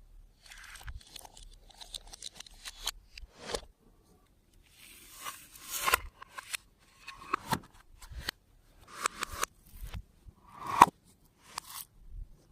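Clear slime being squished and pulled by hand, a run of sticky, crackly bursts about once a second, some building to a sharp pop.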